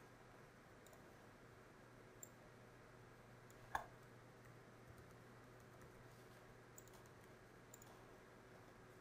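Near silence broken by a few faint clicks of a computer keyboard and mouse. The loudest comes about four seconds in.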